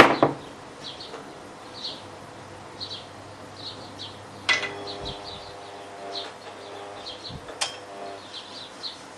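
Small birds chirping over and over in the background, with a sharp click at the very start and two metal clanks that ring briefly, about four and a half and seven and a half seconds in.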